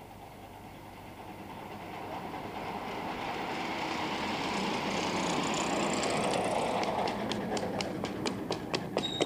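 Coach bus driving past on an asphalt road, its engine and tyre noise swelling as it comes closer and easing as it passes. Near the end, quick footsteps of a person running on the road.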